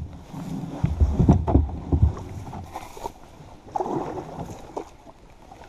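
Kayak being pushed off a grassy, reedy bank with the paddle: the hull bumps and scrapes through dry grass, with irregular low thumps and rustling, loudest in the first two seconds.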